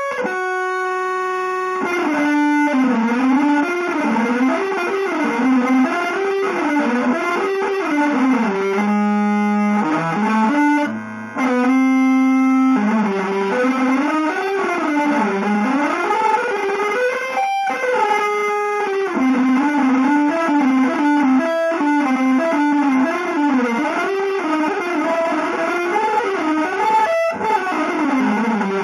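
Electric guitar with effects playing fast, winding single-note lines, with a few long held notes in between and a brief drop about eleven seconds in.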